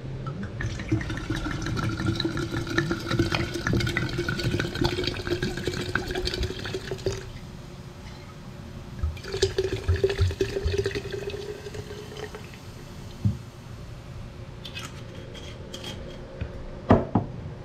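Homemade banana vinegar poured from a glass bottle into a large glass jar of toasted eggshells, a steady pour whose tone rises slowly as the jar fills. The pour stops about seven seconds in, and a second pour runs from about nine to twelve seconds. A sharp knock comes near the end.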